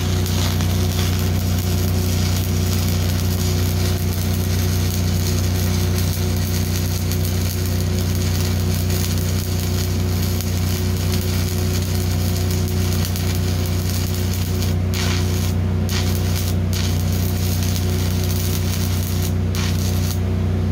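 Shielded metal arc (stick) welding with a 1/8-inch 7018 electrode on rusty steel: the arc crackles and sizzles steadily, drops out briefly a few times near the end, and then breaks off as the arc is stopped. A steady low machine hum runs underneath.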